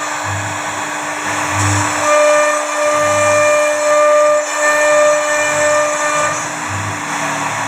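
CNC router spindle running with a steady whine while its bit cuts wood, with a hissy cutting noise over it. Higher tones join in and drop out in the middle, and the whine sags slightly in pitch near the end.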